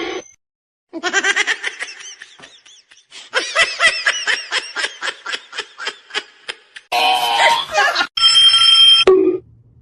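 A person laughing in long runs of short, rhythmic bursts, then a brief steady high tone near the end.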